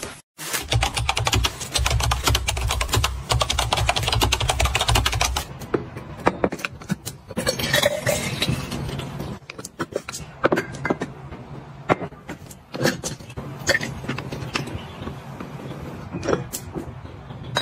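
Vinegar poured from a plastic bottle into a glass dispenser bottle, with scattered clicks and taps as the bottles and the pour-spout lid are handled on the counter. For about the first five seconds a dense, rapid rattling noise with a low hum comes first.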